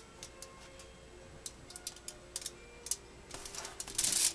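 Eighth-inch masking tape being laid and pressed down by hand: scattered light clicks and ticks, with a louder rustling noise about a second before the end.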